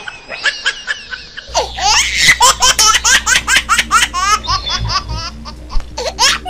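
Dubbed-in laughter sound effect: high giggling, then from about a second and a half in a louder run of rapid child-like "ha-ha" laughs, about five a second.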